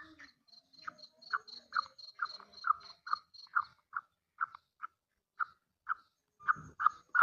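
Black francolin (kala teetar) calling: a steady run of short, evenly spaced notes, about two a second, with a faster series of higher, thinner notes over the first half.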